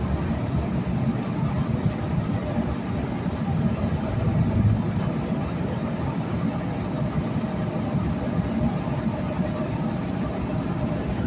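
Steady low rumble of a city bus's engine and running gear, heard from inside the moving bus.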